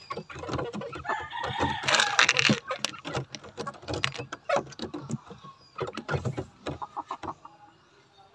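A gamefowl rooster crows once, starting about a second in and lasting about a second and a half, among chickens clucking.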